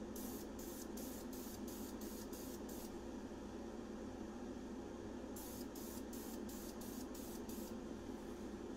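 Aerosol spray-paint can sprayed in quick short bursts, a run of about eight in the first three seconds and another run of about eight a little past halfway, laying on a light coat of paint. A steady low hum runs underneath.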